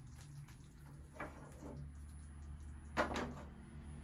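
A frying pan handled on a gas stove: a faint knock about a second in and a sharper, short scrape of the pan on the burner grate about three seconds in, over a low steady hum.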